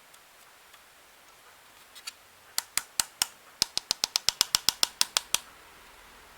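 A run of about seventeen sharp clicks, a few spaced apart at first and then coming faster, several a second, before stopping suddenly.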